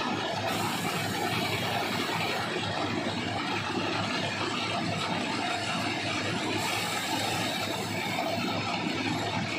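Plasser RM80-92U ballast cleaning machine at work: a steady, dense mechanical din of its engines, screening unit and conveyors churning and shifting stone ballast.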